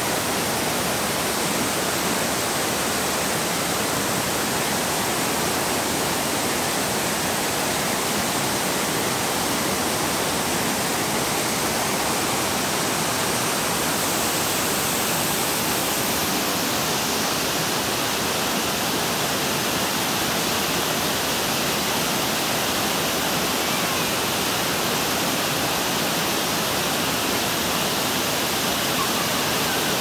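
Tomara waterfall: water cascading in many thin streams down a rock face and splashing onto stones below, a steady, unbroken rush.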